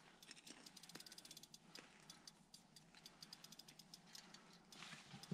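Faint, rapid ratchet-like clicking, many ticks a second, thinning out near the end, over near silence.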